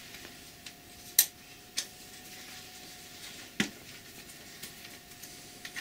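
A few faint, sharp metallic clicks of a hex key seating in and turning the socket cap screws that hold the bed wiper plate on a Colchester lathe carriage, over a faint steady hum.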